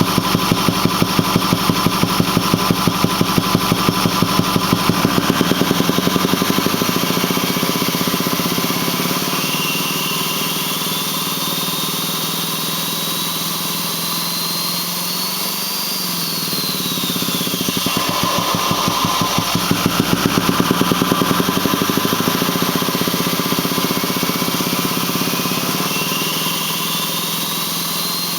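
Ford 6.4L Power Stroke V8 turbo-diesel idling with a rhythmic thumping from the intake. About six seconds in it is revved and held, with a turbo whistle rising in pitch. It drops back to idle around two-thirds of the way through, where the thumping returns, and revs up again near the end. The owner does not know what causes the intake thump; the engine otherwise runs smooth and makes full boost.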